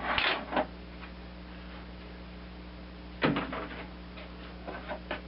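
Hand tools clacking and knocking against weathered wooden roof boards as they are worked off a bird feeder: a few sharp knocks at the start, a louder knock about three seconds in, and light ticks near the end.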